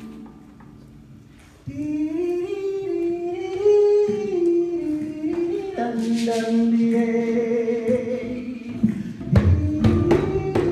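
A voice singing long, held notes with no accompaniment, a lower held note joining about halfway through. Drumbeats start near the end.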